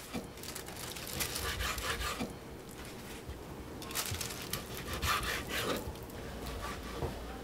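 Kitchen preparation: short runs of rubbing and scraping strokes against wood, one run about a second in and another about four to five seconds in.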